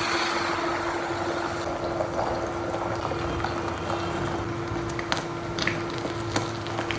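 Beaten egg poured into hot oil in a frying pan, sizzling at once and then frying steadily. A few light clicks in the second half, from chopsticks against the pan, over a steady low hum.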